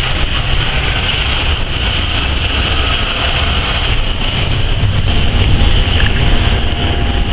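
Double-stack intermodal freight train of well cars rolling past close by: a steady rumble of steel wheels on the rails. About five seconds in, a faint steady hum joins it.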